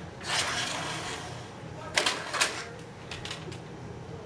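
Plastic rattling about half a second in, then a few sharp clicks around two seconds in and fainter ones a second later: a toy foam-dart blaster being handled.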